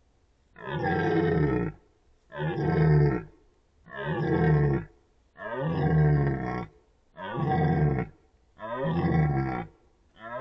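Red deer stag giving a run of about seven rutting roars, each about a second long, coming roughly every second and a half.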